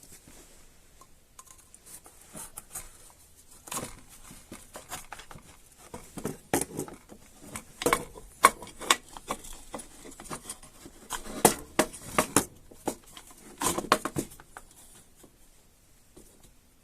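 Hands working on a chainsaw's recoil starter: irregular clicks, taps and short scrapes of small plastic and metal parts, coming in several clusters.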